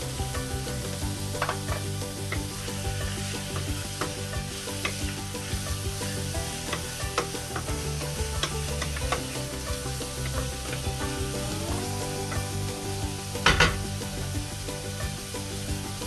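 Chicken pieces sizzling as they fry in a pan with ginger and onions, with a spatula stirring and clicking against the pan. A louder clatter of the spatula on the pan comes about three-quarters of the way through.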